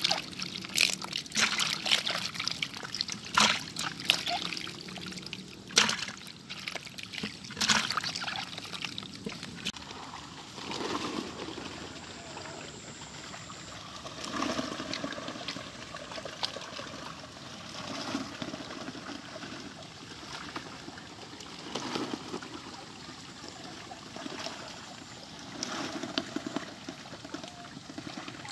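Water splashing in a plastic basin of live tilapia fingerlings as hands move among the fish, with sharp splashes over the first several seconds. After that, softer, steadier trickling and lapping water with gentle swells, from a dense school of young tilapia crowding the surface.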